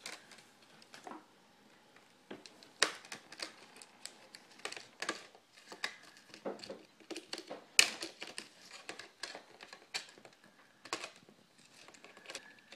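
Plastic clicks and snaps of a laptop's screen bezel being pried off with a flat blade, its clips popping loose irregularly one after another, with the sharpest snaps about three and eight seconds in.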